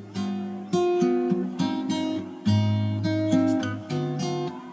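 Background music: acoustic guitar playing plucked and strummed chords, each struck sharply and left to ring.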